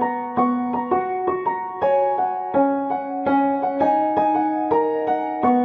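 Background music: a gentle piano tune, notes struck a few times a second and ringing out.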